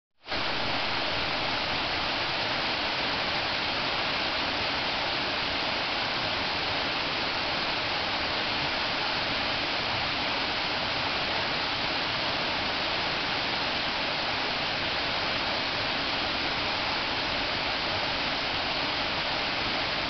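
A small waterfall cascading down sloping rock slabs, making a steady, unbroken rush of water.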